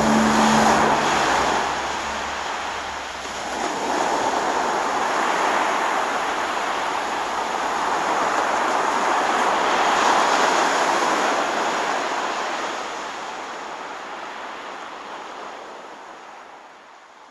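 Ocean waves washing on a shore in slow swells that rise and fall, fading out gradually toward the end.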